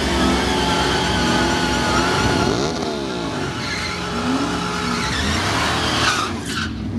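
Supercharged V8s of a Ford SVT Lightning pickup and a 2003 Mustang Cobra running in the drag-strip lanes, engine pitch rising and falling a few seconds in as they rev. Near the end, tyres spin and squeal in a burnout to heat them before the launch.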